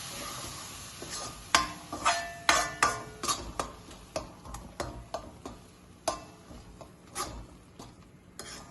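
Spoon stirring tomato purée into frying masala in a cooking pan, knocking and scraping against the pan in irregular clicks that ring briefly. A frying sizzle fades out in the first second.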